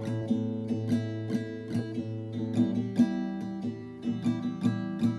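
Acoustic guitar strummed in the six-stroke 'shestyorka' strum, down-down-up-up-down-up, with the chord changing about halfway through.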